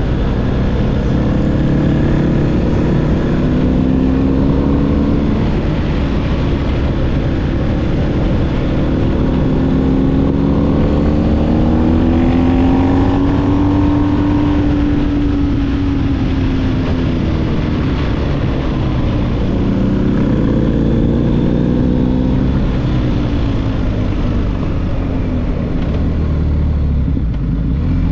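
BMW R1250GS boxer-twin engine through an SC Project SC1-R GT exhaust, heard while riding. The engine note climbs as the bike speeds up through about the middle, then falls away as it slows near the end, over a steady rush of wind and road noise.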